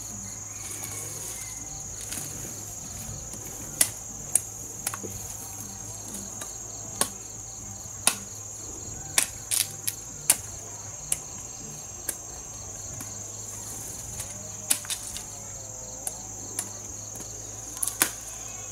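Insects chirring in a steady, high-pitched drone, with irregular sharp knocks and clicks every second or so, some in quick pairs.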